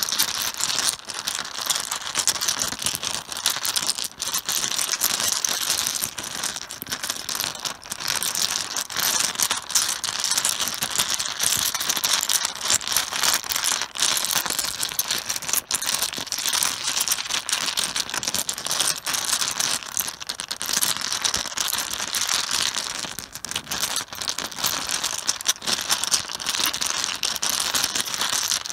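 Mahjong tiles clattering on a cloth-covered surface: a dense, continuous rattle of many small clicking tile-on-tile knocks, with a few sharper clicks now and then.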